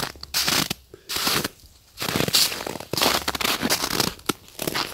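Irregular bursts of rustling and crunching, as of someone moving about in clothing and gear.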